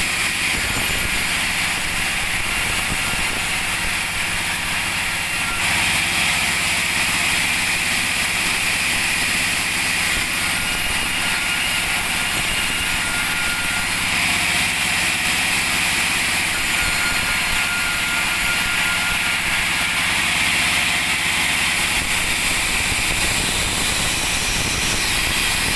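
Petrol chainsaw engine running steadily.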